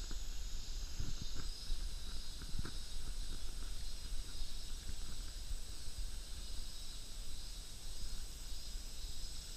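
Steady outdoor hiss with a low rumble, and a few soft footsteps in the first three seconds.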